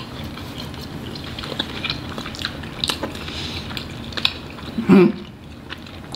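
People chewing mouthfuls of roast duck, with many small wet mouth clicks and smacks. A short hummed 'mm' from a voice about five seconds in.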